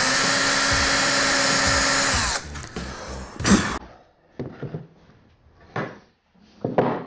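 Cordless drill boring into wood, running at a steady speed for about two seconds before spinning down. A few light clicks and knocks follow as the drill and bit are handled.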